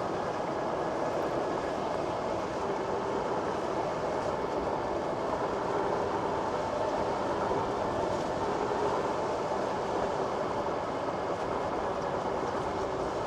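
Electric mountain bike rolling steadily along a paved path, heard close to the rear derailleur: a continuous rumble of tyres, chain and drivetrain with a faint steady whine in it.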